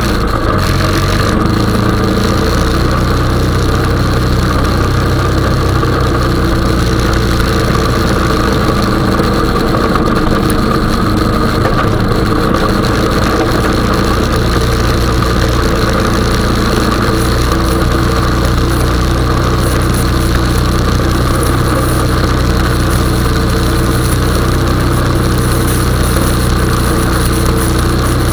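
Honda 420 ATV's single-cylinder four-stroke engine running steadily, with small shifts in engine speed.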